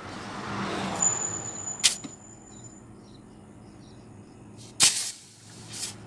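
Short, sharp bursts of hiss from work on a refrigerator's sealed-system piping, with a thin high whistle from about one second in and the loudest burst near the end.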